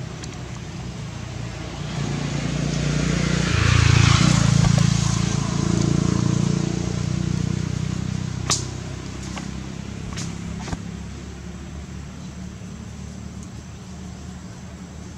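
A motor vehicle's engine passing by, swelling to its loudest about four seconds in and then fading away. A sharp click follows at about eight and a half seconds.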